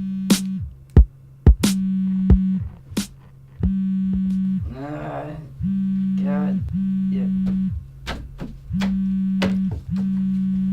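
Electronic music: a buzzy synth note held for about a second at a time and repeated, with sharp drum-machine hits between the notes and a warbling, bending sound about five seconds in.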